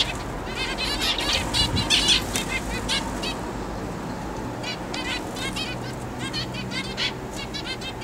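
A flock of zebra finches calling, quick runs of short high chirps from several birds overlapping, thinning out briefly around the middle before picking up again.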